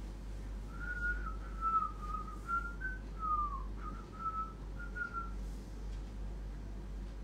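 A person whistling a short wavering tune in several brief phrases, starting about a second in and stopping about two seconds before the end.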